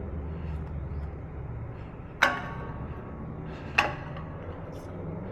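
Two sharp metallic clanks about a second and a half apart, each ringing briefly, over a low steady hum: metal parts of a shop press setup knocking while a control arm bushing is being pressed in.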